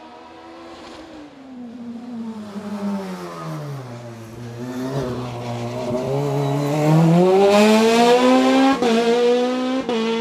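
Sports-prototype race car engine coming down through the gears into a hairpin, its note falling, then accelerating hard out of the bend, the pitch climbing and the sound getting loud, with a quick gear change near the end.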